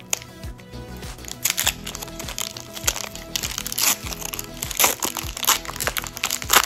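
Foil wrapper of a Pokémon trading-card booster pack being torn open and crinkled by hand. It makes a string of crackling rustles, loudest about four and five seconds in and again just before the end. Background music plays under it.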